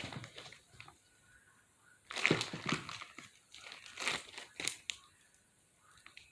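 Crinkling and rustling as fidget toys are handled and moved about, in three bursts: at the start, about two seconds in and about four seconds in.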